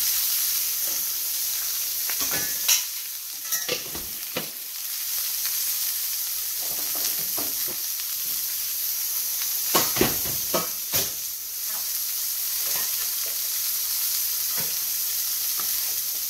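Rib steak sizzling in a hot cast-iron skillet, a steady frying hiss. A metal lid clanks down onto the pan about three seconds in, and there are a few more sharp clinks of lids and spoon on cookware around ten seconds in.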